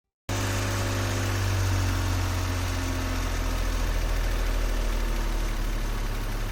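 Toyota HiAce van's engine idling steadily, cutting in abruptly a moment in.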